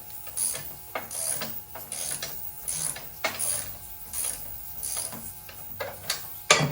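Hand ratchet wrench being worked back and forth, its pawl clicking in short strokes about twice a second, with a sharper metallic clack near the end.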